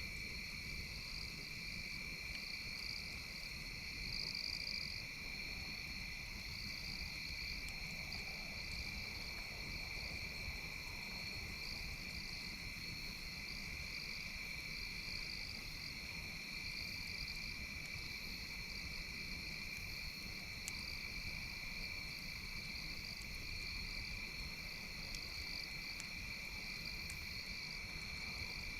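Steady chorus of night insects such as crickets: a continuous trill with a higher, pulsing trill above it, over a low steady rumble.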